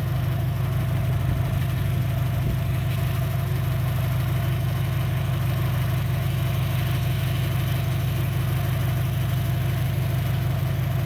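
2003 Dodge Neon's 2.0-litre four-cylinder engine idling steadily on only two cylinders: the two fed by a failed ignition coil are not firing, so it runs rough.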